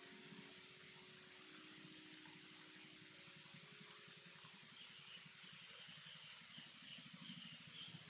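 Quiet background music of long held notes that change pitch, over a steady high-pitched insect trill.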